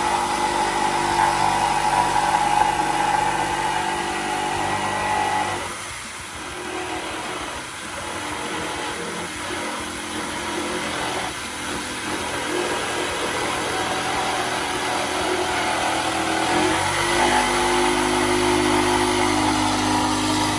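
Corded electric jigsaw running and cutting through the wooden baffle of a speaker cabinet, around its round driver cutout. The steady motor whine and blade rasp drop and change pitch about a quarter of the way in, then rise again near the end as the load on the blade changes.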